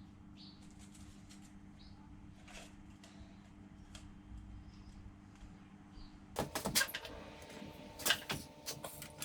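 Small metal clicks while a valve spring compressor works the valve springs and retaining clips on the cylinder head, over a steady low hum. From about six and a half seconds in come louder metal clanks and clinks, some of them ringing.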